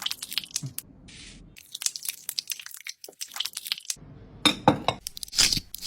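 Kitchen food-preparation sounds: irregular small crunches, clicks and clinks, quieter for a stretch a couple of seconds in, then a denser run of clicks.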